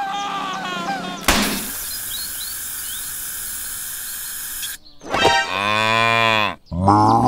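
A sudden pop, then about three seconds of steady hiss, then a cow mooing twice, each a long call that rises and falls in pitch.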